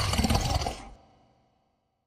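Cartoon sleeping-puppy sound effect: a long, rough, noisy breath like a snore, fading away about a second in.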